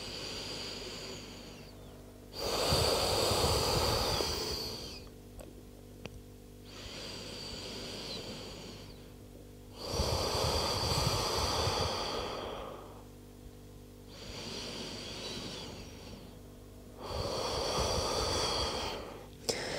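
Slow, deep human breathing close to the microphone: six long breath sounds of two to three seconds each, alternating softer and louder, making about three full in-and-out breaths.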